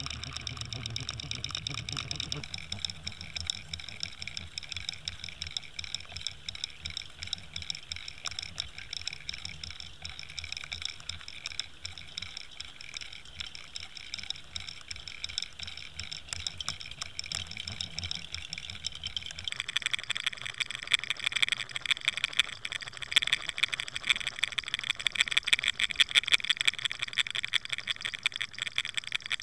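Underwater sound picked up by a camera riding the line behind a muskie lure as it is retrieved: water rushing past with fast, dense clicking and rattling. A low hum drops out about two-thirds in, and the clicking gets louder from there.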